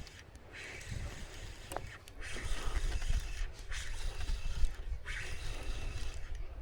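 A person breathing heavily close to the microphone, in and out about every second or so, over a low rumble.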